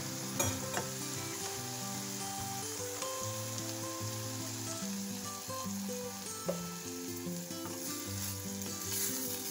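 Chopped chayote sizzling in a steel saucepan as milk is poured in and a wooden spatula stirs it, with a few light knocks of the spatula. Background music plays underneath.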